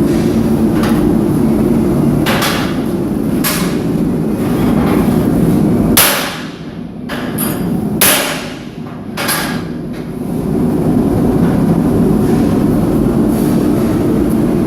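Hammer striking steel on an anvil while forging scrolls: a few scattered blows, the loudest three coming about six, eight and nine seconds in, over a steady low roar.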